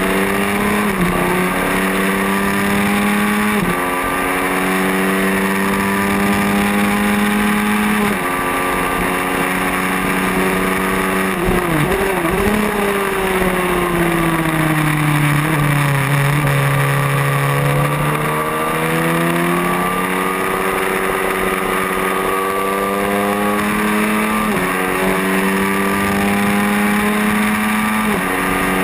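Racing motorcycle engine heard onboard at full throttle. Its pitch climbs through the gears with a sharp drop at each upshift, twice in the first third and twice more near the end. In the middle the revs fall away for a few seconds, as under braking into a corner, then climb again, with a rush of wind over the engine.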